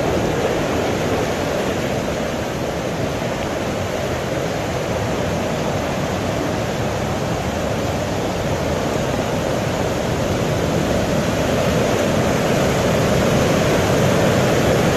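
A swollen river in flood, a torrent of muddy water, rushing in a steady loud wash of noise that grows a little louder over the last few seconds.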